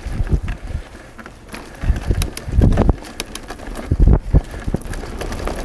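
Mountain bike riding down a dirt singletrack: tyres on dirt and dry leaves with rattling and clicking from the bike, and heavy low thuds as it hits bumps, loudest about two to three seconds in and again about four seconds in.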